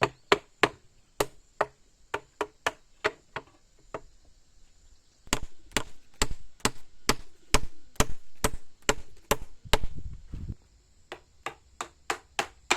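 Rapid chopping blows of a blade into wood, about three a second, in three runs broken by short pauses.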